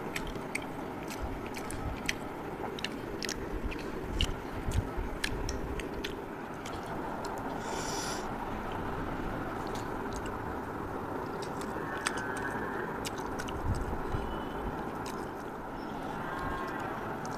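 Close-up chewing with many short wet clicks and lip smacks as a man eats fish curry with his fingers, with the occasional scrape of fingers on a metal plate.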